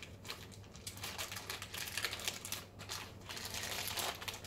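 Crinkling and rustling of thin wrapping being pulled off a small plug adapter by hand: a run of small irregular crackles and clicks, with a faint steady low hum underneath.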